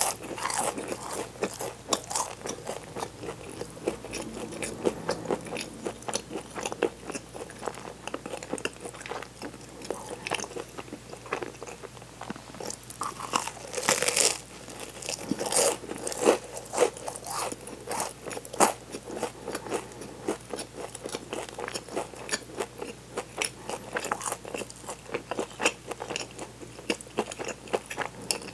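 Close-miked biting and chewing of a chocolate-chunk bread with a crisp, flaky glazed crust: a run of small crackly crunches, with louder bites about fourteen and sixteen seconds in.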